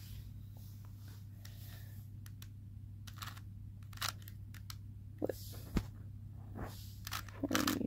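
Faint, irregular clicks and taps, about a dozen scattered through, over a steady low hum.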